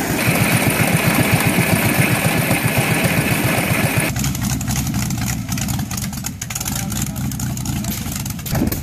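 Antique stationary engines running and driving a grain mill with a shaking screen: a fast rhythmic clatter with a high steady whine. About four seconds in, the sound cuts to another old engine running steadily.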